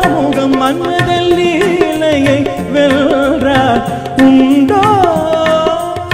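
A male singer sings a Carnatic-style Tamil film song into a microphone, his voice wavering and sliding ornamentally around the notes, with tabla accompaniment. Near the end he holds one long note.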